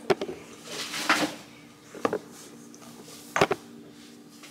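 A few short knocks and clatters of kitchen items being handled on a counter, the sharpest one near the end, over a faint steady hum.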